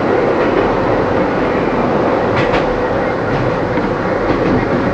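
Kobe Electric Railway 3000 series electric train running, heard from the cab: a steady rumble of wheels on rail, with a quick double clack of wheels over a rail joint about halfway through.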